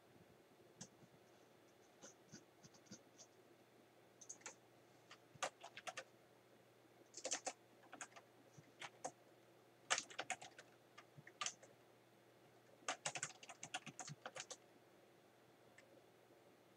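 Faint computer keyboard typing: short bursts of keystrokes with pauses between, as letters are typed into a search box and deleted again.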